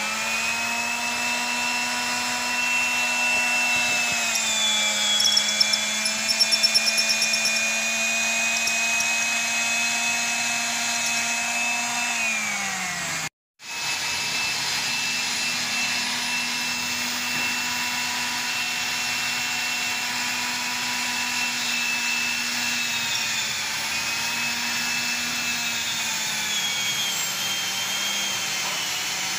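Magnetic drill press motor spinning up and running with a steady whine as its annular cutter bores through steel plate. The pitch sags a little as the cutter takes load. A run of sharp ticks comes about five to seven seconds in, and the sound cuts out for a moment near the middle.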